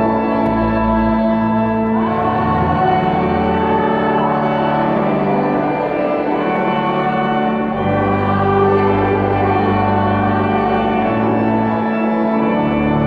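Zanin pipe organ playing held chords in a slow sacred piece. Deep pedal bass notes drop out for a few seconds mid-way and come back in about 8 seconds in.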